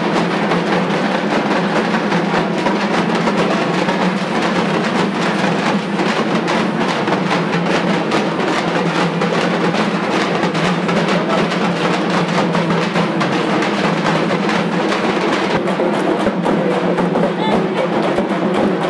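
Several dappu frame drums beaten with sticks in a fast, dense, unbroken rhythm.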